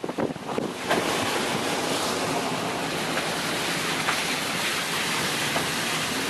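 Steady rushing road and wind noise inside a car driving slowly on a dirt road, with a few knocks and rattles over bumps in the first second before it settles into an even rush.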